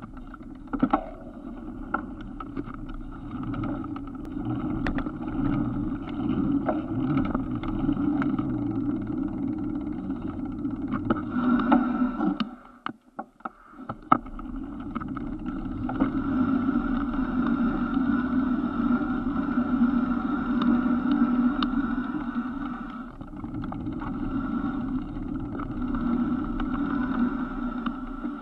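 A steady motor drone that drops out briefly about twelve seconds in, then resumes.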